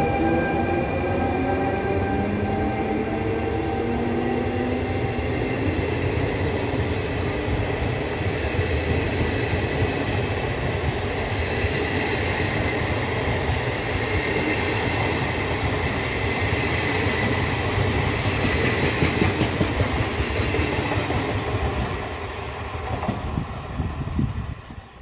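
Trenitalia E.464 electric locomotive and its regional train running through the station. At first the locomotive's traction equipment whines in several tones rising in pitch as it gathers speed. Then the coaches roll past with steady wheel-on-rail rumble and a run of clicks over the rail joints, fading away near the end.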